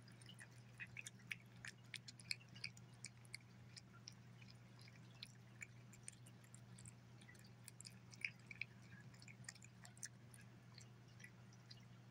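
A cat eating soft food from a bowl: faint, irregular wet licking and chewing clicks that come in runs and thin out toward the end, over a steady low hum.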